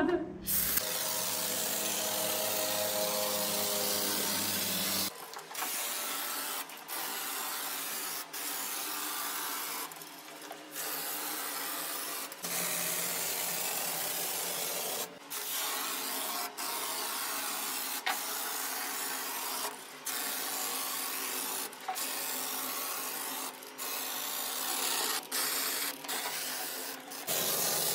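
Polyurethane spray foam hissing out of an aerosol can through its foam gun in repeated spells, a steady rough hiss broken by brief stops every second or two.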